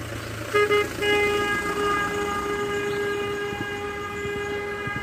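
A vehicle horn sounding: a short toot about half a second in, then held down in one long, steady, single-pitched blare for about four seconds, with a vehicle's low running noise underneath.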